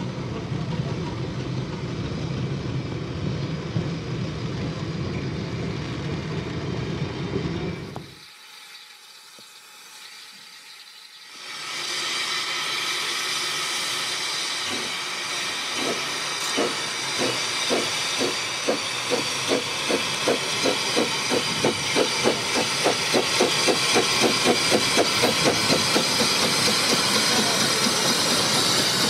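Narrow-gauge steam locomotive blowing steam with a steady hiss, then pulling away with its train. Its exhaust beats start slow and quicken to about three a second by the end, over a loud hiss of steam.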